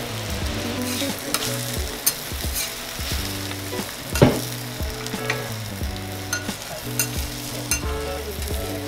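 Eggs, a scallion pancake and radish cakes sizzling on a flat-top steel griddle. Metal spatulas click and scrape against the steel now and then, loudest in one scrape about four seconds in.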